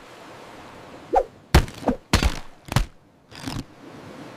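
A series of added crash sound effects: four heavy thuds a little over half a second apart, starting about a second in, followed by a short scraping rustle.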